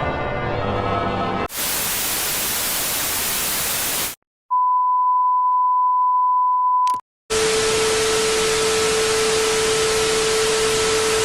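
Bell-like music cuts off about a second and a half in and is replaced by loud white-noise TV static. After a short break comes a steady single-pitch test tone for about two and a half seconds, then static again with a steady lower tone under it.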